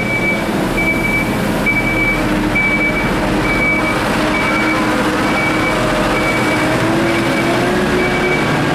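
Diesel loader working in a salt-mine tunnel: a steady engine drone, with the pitch rising a little about seven seconds in, under a reverse alarm beeping evenly about once a second.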